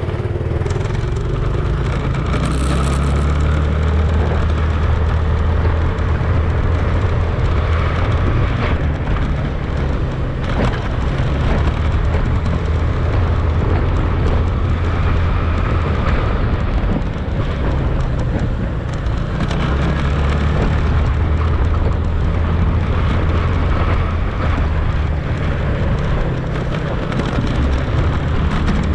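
Motorcycle riding noise picked up by an action camera: heavy wind rumble on the microphone, steady throughout, over the motorcycle's engine running underneath.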